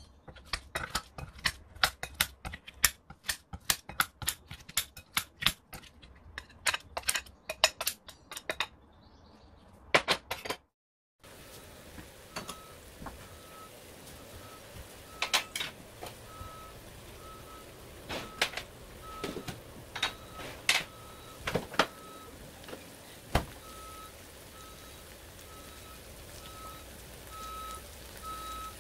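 Kitchen scissors snipping kimchi in a glass bowl, many quick snips. After a short break, chopped green onions frying in oil in a frying pan, with a steady sizzle, occasional pops and a faint high tone that comes and goes.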